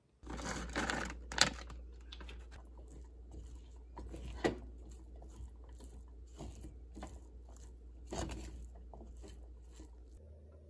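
Wooden spatula stirring and pressing fried rice with shredded mozzarella in a stainless steel pan: irregular scrapes and soft crunchy rustles, with a few sharp taps of the spatula against the pan, the loudest about a second and a half in and about four and a half seconds in. A low steady hum sits beneath and stops shortly before the end.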